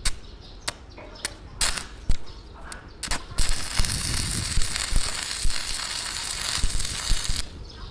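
A few sharp metal knocks, then a loud, dense crackling hiss lasting about four seconds that cuts off suddenly.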